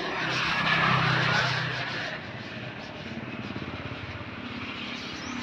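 A motor vehicle passing on the road: its engine noise swells and fades over the first couple of seconds, leaving a lower steady hum.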